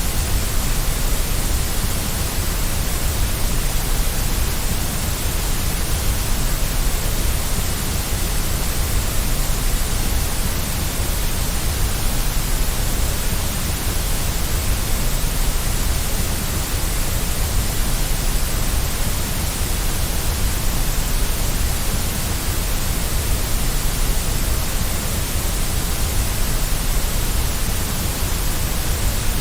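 Steady, unchanging white noise: an even hiss with a deep rumble underneath, played as a baby sleep aid.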